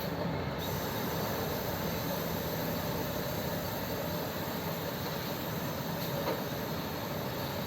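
Steady rumble of road and engine noise inside a moving vehicle, constant throughout.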